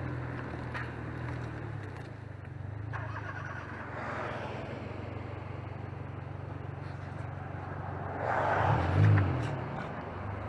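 Car driving, picked up by a camera mounted near a front wheel: steady road and running noise with a low hum. A louder rushing swell comes about eight seconds in.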